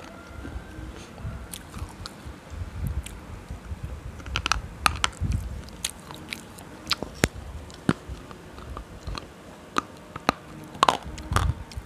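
Close-miked biting and chewing of a hard, brittle stick: sharp cracks and snaps come in scattered clusters, with soft chewing between, and the loudest crunches come near the end.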